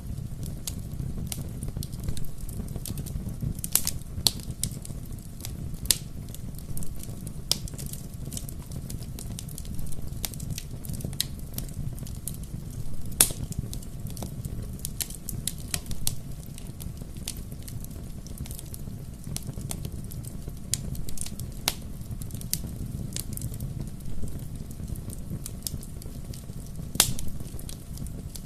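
Bonfire crackling steadily over a low, even rumble of flames, with irregular sharp pops; the loudest snaps come about four, six, thirteen and twenty-seven seconds in.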